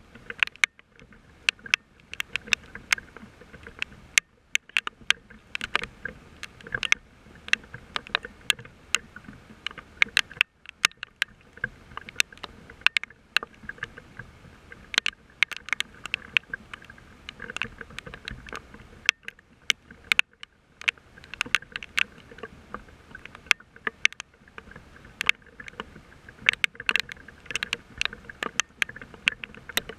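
Rain falling: many sharp, irregular drop taps over a steady hiss.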